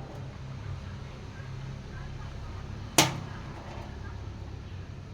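A single sharp knock of metal on metal about three seconds in, with a short ringing tail, over a steady low hum.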